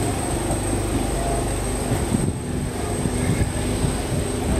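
Historic passenger coaches rolling slowly past, with irregular clicks and knocks from the wheels and running gear over a steady low hum. The knocking becomes more frequent about halfway through.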